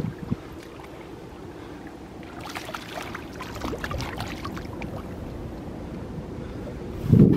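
A hooked fish splashing at the water's surface in a quick flurry as it is reeled in beside the boat, over a low wash of water. Near the end a gust of wind buffets the microphone.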